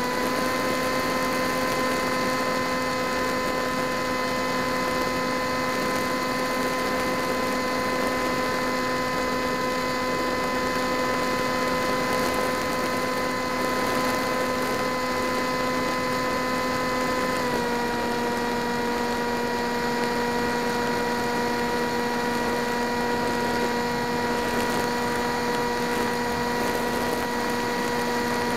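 Model aircraft's motor and propeller giving a steady whine over wind rush, picked up by the onboard camera's microphone; the pitch steps down slightly about two-thirds of the way through.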